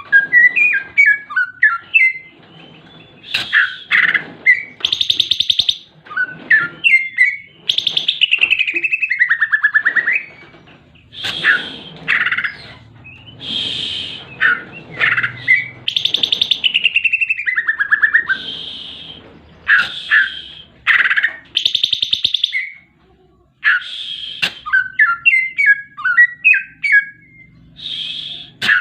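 Greater green leafbird (cucak hijau) singing a long, varied song of rapid chips, buzzy trills and sweeping whistled glides, laced with mimicked phrases of other birds, the 'isian' that makes it a tutor song for training songbirds.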